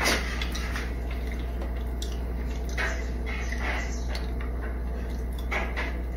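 A few soft clinks and scrapes of a kitchen spatula against a plate, over a low steady hum.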